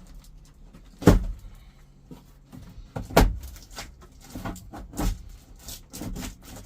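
Plastic heater-core cover on a 1996 Chevy S10 heater box being pried and pulled loose: three sharp knocks, about a second in, about three seconds in and about five seconds in, with a run of smaller plastic clicks and rattles in between.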